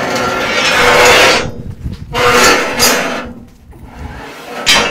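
A long clinker pole being drawn out and scraping along the metal fittings of a steam locomotive cab: two long scrapes, then a sharp knock near the end.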